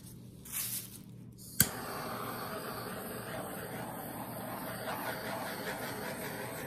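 Small handheld butane torch clicking alight about a second and a half in, then burning with a steady hiss.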